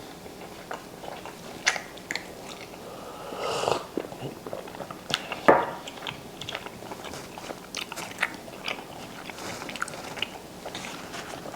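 Someone chewing and eating close to the microphone: scattered small mouth clicks and crunches, with a louder smack or click about five and a half seconds in.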